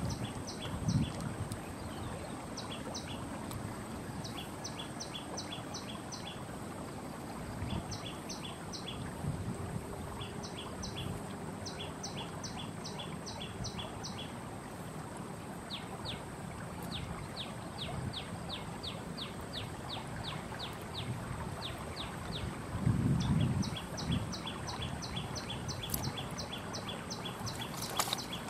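A small bird chirping in quick runs of short high notes, about four a second, over a faint steady high whine and outdoor ambience. A brief low rumble late on.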